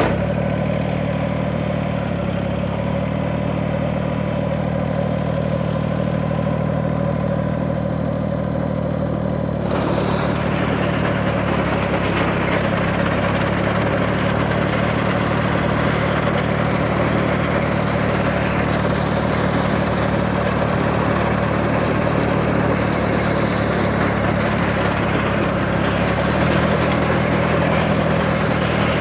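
Tractor engine running steadily, driving an antique Ford hay cutter; about ten seconds in the sound gets louder and noisier.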